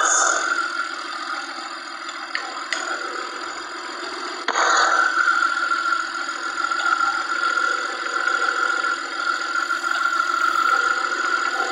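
Peugeot ES9A V6 petrol engine running steadily during a coolant-flow check of the water pump. About four and a half seconds in, it gets louder and stays that way.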